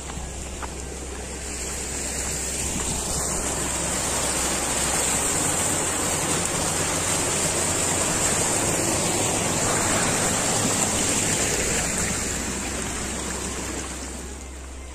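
Water rushing and splashing from a small waterfall pouring down a stone wall, a steady rushing noise that swells in and eases off near the end.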